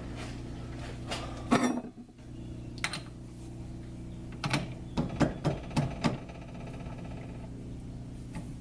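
South Bend metal lathe running with a steady motor hum, with a few sharp clicks and knocks about one and a half seconds in and a cluster of them between four and a half and six seconds in.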